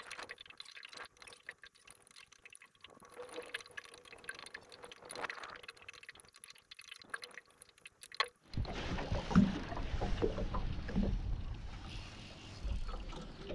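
Water lapping and gurgling against the hull of a small aluminium boat, with scattered small clicks. The noise grows louder and rougher about eight and a half seconds in.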